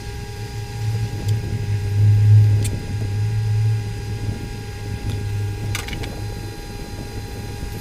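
Low, steady electrical hum from repair-bench equipment, swelling and fading a little, with a couple of faint clicks from small tools.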